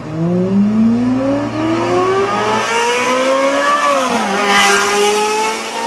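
A race-car engine revving up in one long rising pitch, dropping sharply about four seconds in, then holding a steady pitch.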